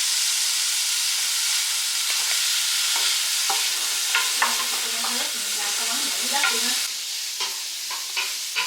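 Chicken wings frying in hot oil, a steady loud sizzle, with the light clicks of a utensil now and then.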